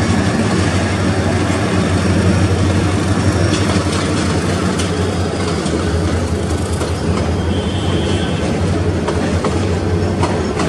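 Passenger train coaches rolling past with a steady low rumble and hum, wheels clicking over rail joints a few times. A brief high wheel squeal comes about seven seconds in.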